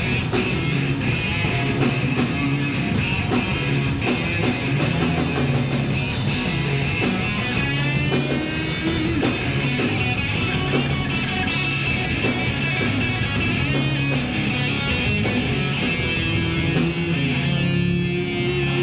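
A rock band playing, electric guitar to the fore over bass and drums, at a steady loudness.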